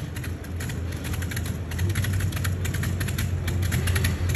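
Modified pulling tractor's engine idling, a steady low rumble with a rapid clatter of ticks. It gets louder about two seconds in.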